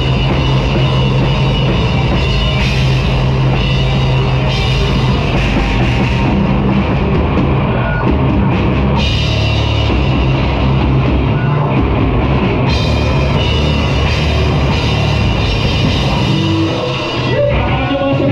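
Live heavy rock band playing loud: electric guitar, bass guitar and drum kit. The music dips briefly about seventeen seconds in.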